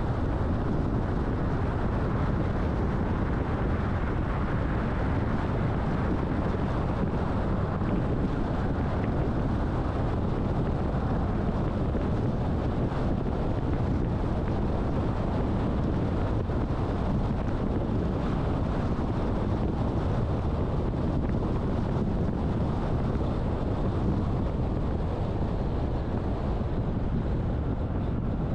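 A car driving steadily: road and wind noise, an even low rumble with no sudden events.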